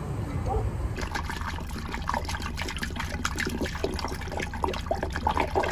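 Water glugging and splashing as a large upturned water bottle empties through a plastic funnel, starting about a second in.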